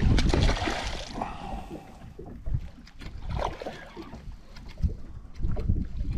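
Wind buffeting the microphone, strongest in the first second, then uneven low knocks and water sounds as of a small boat on the water.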